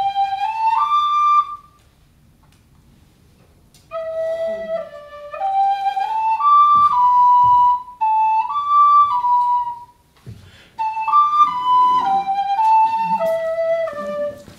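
A small wooden flute playing a simple melody of held notes that move up and down in steps. It plays in short phrases: one at the start, then a pause of about two seconds, then three more phrases separated by brief breaks.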